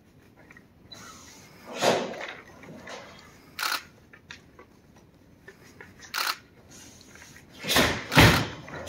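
Karate kata: a karate gi snapping sharply with fast strikes and a kick, along with thuds of bare feet on the mat. There are about five of these sharp sounds, the loudest two close together near the end.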